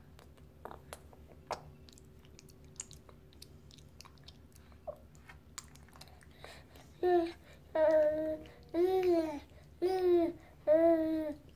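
A baby eating from a spoon, with a few faint mouth smacks and clicks. From about seven seconds in come five short, loud babbling calls, each under a second long, with the pitch bending up and down.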